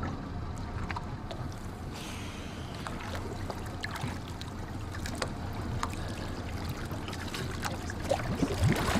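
Small boat at sea: a steady low hum with water and wind noise and scattered knocks and clicks, and a louder rush with rising sweeps near the end.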